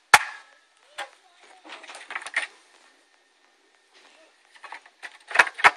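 Plastic clicks and snaps from an instrument cluster's plastic housing as its locking tabs are pried loose and the pieces are handled. There is a sharp snap at the start, a run of small clicks around two seconds in, and two sharp clicks near the end.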